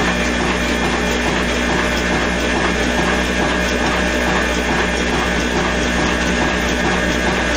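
Old Ruston stationary engine and the belt-driven flour mill (chakki) it powers, running steadily with a regular rhythm.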